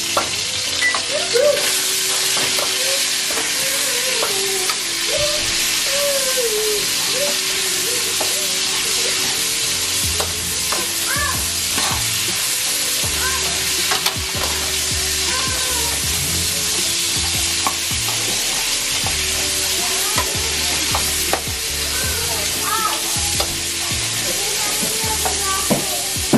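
Sliced onions and bell peppers sizzling steadily in oil in a stainless steel frying pan, stirred and turned with metal tongs that click against the pan now and then.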